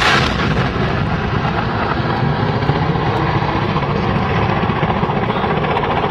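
Attack helicopter's engine and rotor noise running steadily, heard from inside the aircraft. The tail of a loud hissing burst from the weapon fire just before fades out in the first moment.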